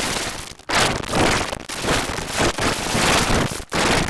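Harsh, crackling distorted noise from heavily effects-processed cartoon audio, coming in loud surges with a few brief dropouts.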